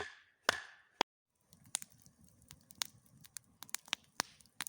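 Two sharp wooden knocks half a second apart and a click, then a run of irregular snaps and crackles over a low rustle: poles and twigs being handled.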